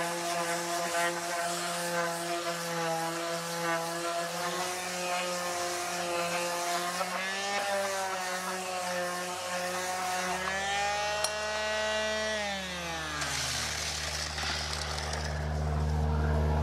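Power sander running steadily against the rusty steel face of a Bush Hog slip-clutch plate, taking the rust off. Near the end its whine drops as it spins down. A lower steady hum comes in about two-thirds of the way through.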